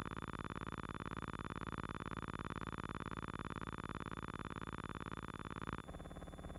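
Steady buzzing hum with a fast, even flutter: the noise of an old silent film's transfer rather than any sound from the scene. Its tone changes abruptly about six seconds in.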